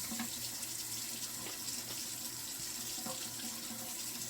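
Water running steadily from a sink tap, left on so that the water turns hot.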